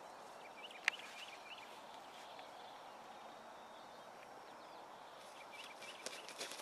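Open-field ambience: a steady faint hiss with small birds chirping in short runs, once about a second in and again near the end. A single sharp click sounds about a second in, and light rustling footsteps come at the very end.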